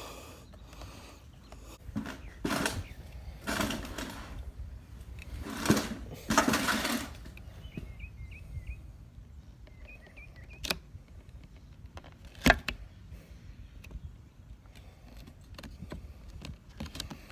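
Hand handling noise as a stick-on plastic bezel insert is pressed and worked into the Jeep's headlight surround: several brief scraping rustles in the first half, then two sharp taps or clicks.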